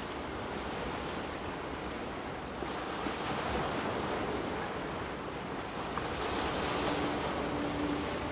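Sea surf: waves breaking and washing in a steady rushing wash that swells and eases, with some wind on the microphone.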